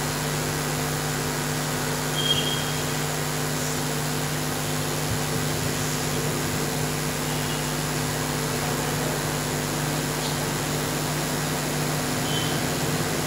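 Steady electrical hum and hiss from the church's microphone and sound system, with three brief faint high chirps.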